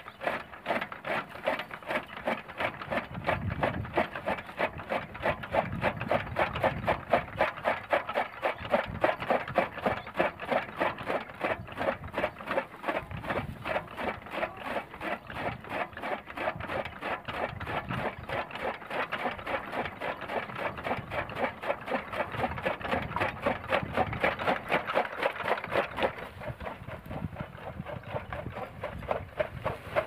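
Bull-powered gear toka (chaff cutter) chopping green fodder: its gears and flywheel-driven blades clack in a rapid, even rhythm of about four strokes a second, with occasional duller thuds.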